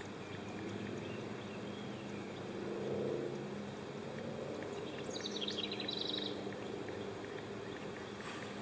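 Outdoor ambience: a low steady hum of distant traffic that swells briefly about three seconds in, with a short bird song of quick high notes about five seconds in.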